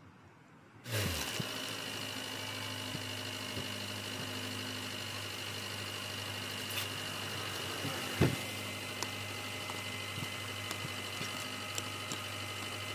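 Car engine starting about a second in, its pitch dropping as it settles into a steady idle. There is a single thump about eight seconds in.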